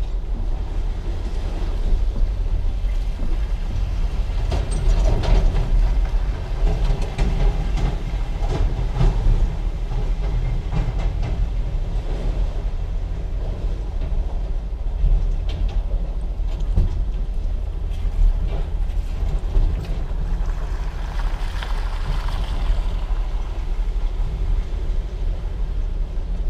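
A vehicle engine idling with a steady low rumble, with scattered metallic clanks and rattles that cluster in a busy stretch a few seconds in and again near the end.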